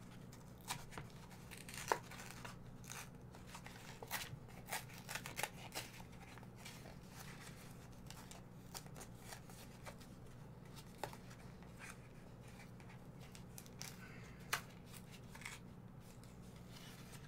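Stiff plastic blister packaging of a Pokémon card pack being worked open by hand: scattered crackles and clicks of the plastic, with the sharpest about two seconds in and again near the end.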